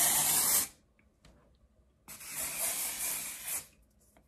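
Aerosol hairspray can sprayed in two bursts: a hiss of about a second at the start, then a longer hiss about two seconds in.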